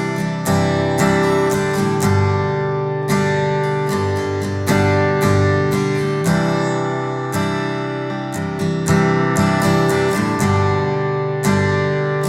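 Background music: strummed acoustic guitar playing chords with a steady rhythm.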